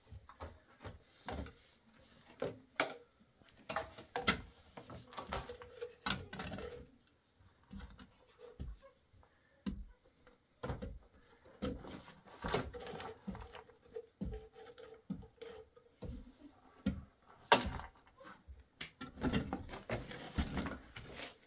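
PVC drain pipes and plastic fittings being handled and laid in a dirt trench: irregular knocks and clicks of plastic on plastic and on the ground, with scuffing on loose dirt and gravel in between, one sharper knock about two-thirds of the way through.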